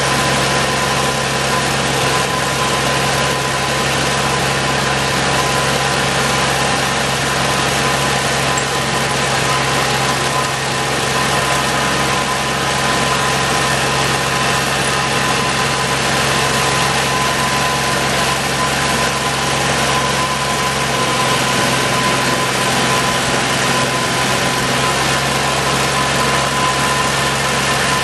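Ditch Witch 3700 trencher's engine running steadily at a constant speed during its startup check, while the hydraulics are cycled to raise the digging boom.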